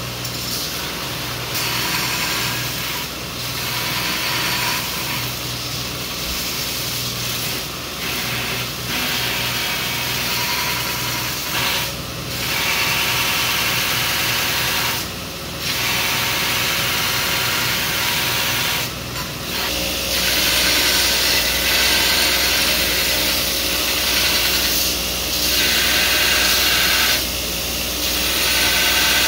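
Belt grinder running with steel knife blanks pressed against the belt in repeated passes: a steady motor hum under a loud grinding hiss that breaks off briefly every few seconds as the blank is lifted from the belt.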